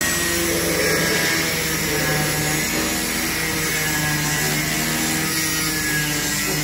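Angle grinder running steadily, its thin abrasive cut-off disc cutting through a metal sheet: a constant motor whine over a dense hiss from the cut.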